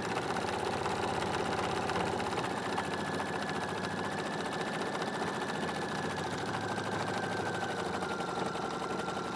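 Husqvarna Viking sewing machine stitching steadily at speed: a fast, even needle rhythm over a thin motor whine that drops slightly in pitch near the end.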